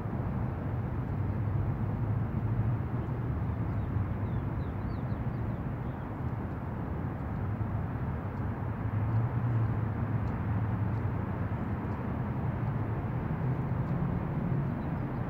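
Steady low rumble of outdoor background noise, with a few faint high chirps about four to five seconds in and again near the end.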